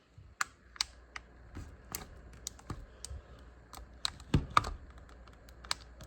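Irregular sharp clicks and taps of hard objects being handled, about a dozen in all, with the loudest knocks about four and a half seconds in.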